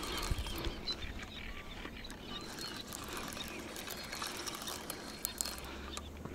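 Light splashing and trickling of water, with many small splashes and drips, as the water is stirred by movement through it.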